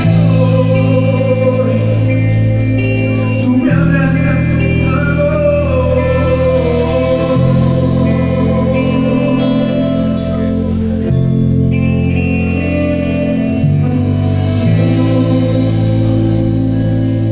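Live band music with vocalists singing into microphones over held low chords that change every few seconds, with drums in the band.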